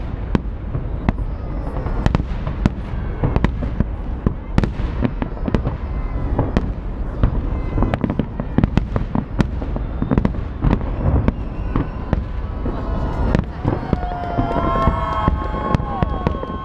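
Festive fireworks salute: a dense, continuous run of bangs and crackling bursts. Near the end a few steady whistle-like tones sound over them.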